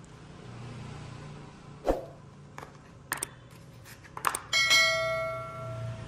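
Red powder-coated Zippo lighter handled out of its box: a soft thump and several light clicks, then a sharp metal click about four and a half seconds in with a bell-like ring that fades over about a second, the typical clink of a Zippo's metal case and lid.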